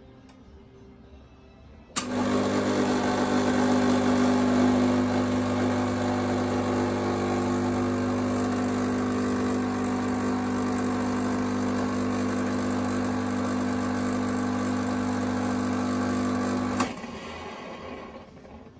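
Espresso machine pump buzzing steadily while it pulls a shot. It starts with a click about two seconds in and stops with a click about fifteen seconds later.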